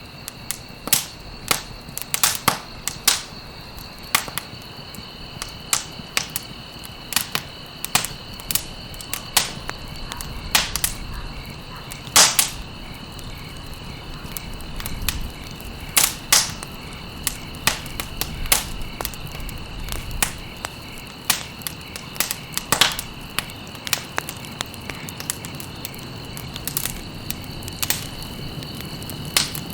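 Campfire crackling, with sharp pops every second or so; the loudest come about twelve and sixteen seconds in. A steady high-pitched tone runs underneath and stops just before the end.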